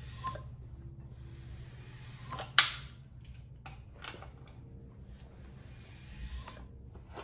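Scattered metallic clicks and knocks from hand tools being worked on an engine, irregular rather than a steady ratchet rhythm, with one sharp clank about two and a half seconds in. A low steady hum runs underneath.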